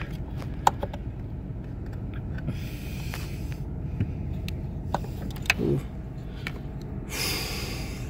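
Faint clicks and taps as a brake light switch is worked toward its mounting hole on the brake pedal bracket, over a steady low hum. Two heavy breaths come from the person working, one about three seconds in and a longer one near the end.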